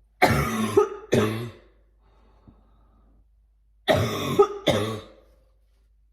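A person coughing hard in two short fits about four seconds apart, each a quick run of harsh coughs. It is the chesty coughing of a severe illness.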